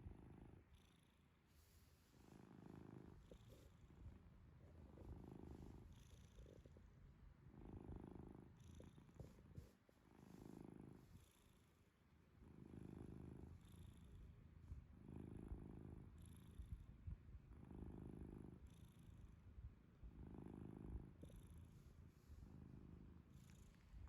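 Domestic cat snoring faintly in its sleep, a low rattly snore with each breath, about every two and a half seconds.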